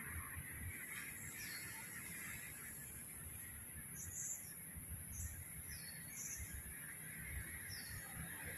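Faint outdoor ambience with a scattering of short, high bird calls, about seven of them, over a steady high-pitched hiss and a low rumble.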